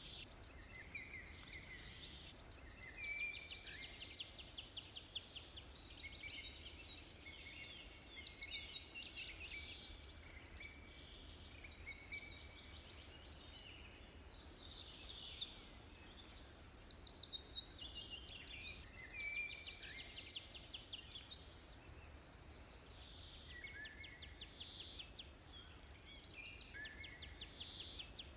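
Wild birds singing: fast trilled songs and chirps that come and go every few seconds, over a faint steady low rumble.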